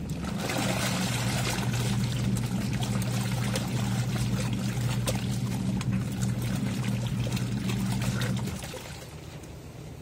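Twin-tub washing machine's wash tub agitating bath towels in soapy water: the wash motor hums steadily under loud churning and sloshing water, then stops about eight and a half seconds in.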